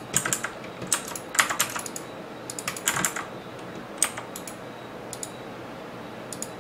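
Typing on a computer keyboard: irregular clusters of key clicks that stop about five seconds in.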